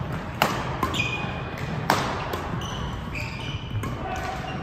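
Badminton rally: rackets strike the shuttlecock in several sharp pops, the loudest about two seconds in, while court shoes squeak in short chirps on the hall floor.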